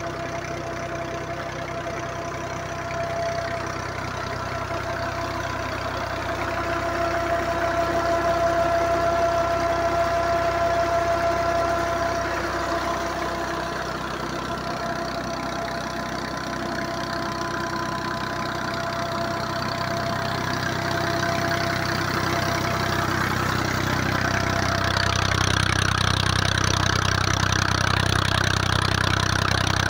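Old Massey Ferguson tractor's diesel engine running steadily under load, driving a tube-well water pump through its PTO shaft and universal joint. Near the end the sound grows louder and deeper.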